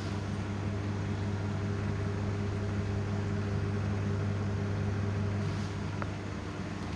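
Whirlpool Crisp and Grill microwave oven running while it cooks, giving a steady electrical hum with the whir of its fan.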